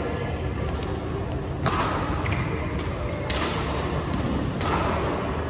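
Badminton rally: rackets striking the shuttlecock three times, roughly a second and a half apart, each hit with a short echo, over a steady low hum.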